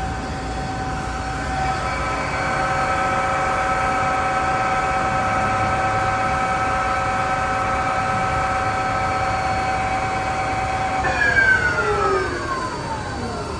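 Mazak M5N 2000 CNC lathe's spindle drive running with a steady whine, then winding down in a falling pitch about eleven seconds in.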